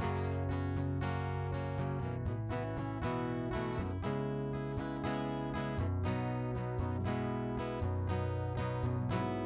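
Acoustic guitar strummed in a steady rhythm, playing an instrumental passage of an Americana song.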